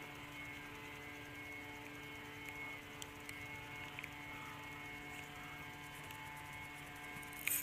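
Faint steady hum made of several held tones, with a few light ticks and a sharper click near the end.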